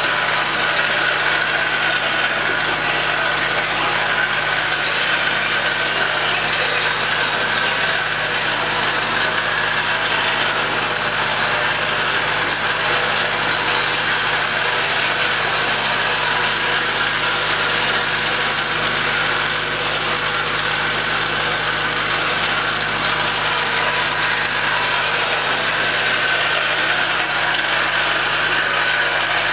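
Vibratory bowl feeder running: a steady hum under a dense, even metallic rattle of the metal rods shaking along its spiral track.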